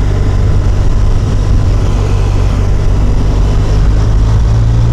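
Loud, steady wind noise and the drone of a 2015 BMW R1200RT's boxer-twin engine, picked up by a microphone inside a motorcycle helmet while riding. Near the end the engine note starts to rise as the bike gathers speed.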